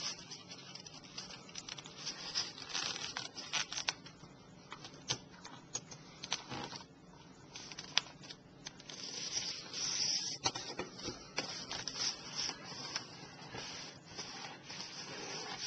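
A sheet of printer paper being handled and folded, with irregular crinkles, ticks and rubbing as the fold is lined up and pressed flat.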